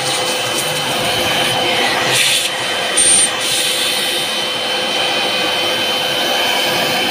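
Vacuum cleaner running steadily with its crevice nozzle sucking loose toner powder off a photocopier drum unit, with a brief high whistle about three seconds in.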